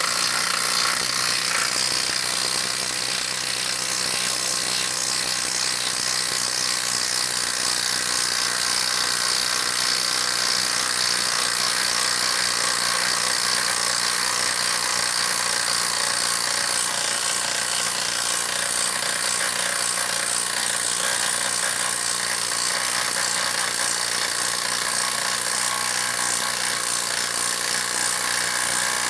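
DeWalt 12V brushless impact driver hammering steadily under load as it bores a 1-1/4 inch spade bit into a wooden board.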